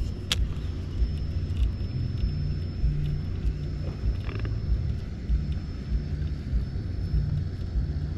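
A steady low rumble, with a sharp click about a third of a second in.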